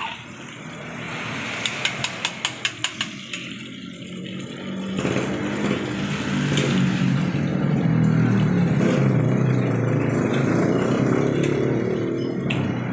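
Oil sizzling in a wok as a metal spatula taps quickly against a wire frying strainer, about eight sharp clicks around two seconds in. From about five seconds a louder, steady low engine-like rumble takes over.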